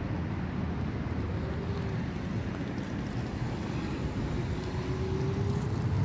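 Tesla Model X's battery cooling (air-conditioning compressor and fans) running during Supercharging: a steady low hum with a faint whine that twice slowly rises in pitch, under wind rumbling on the microphone.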